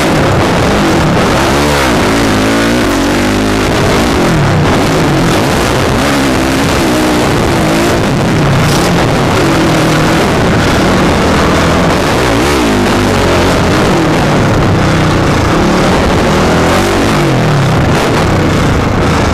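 Motocross dirt bike engine revving hard through the race, its pitch climbing and dropping over and over as the rider works the throttle and gears.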